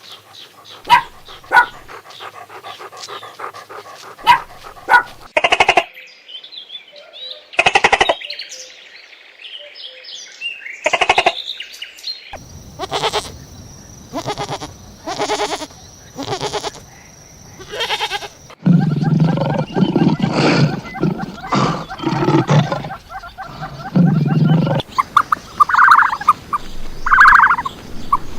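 A run of different animal calls, one after another, the kind of animal changing every few seconds. Near the end comes a series of turkey gobbles.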